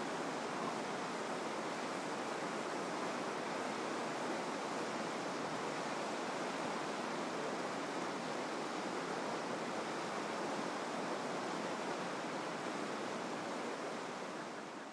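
Steady rushing of a fast, swollen floodwater river after heavy rain, fading out near the end.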